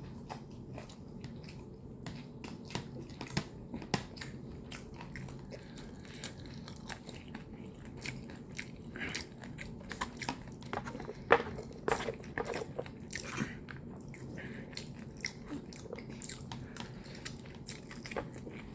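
Close-up mouth sounds of a person eating spicy instant noodles: chewing and smacking, with many small wet clicks and a louder cluster of them in the middle.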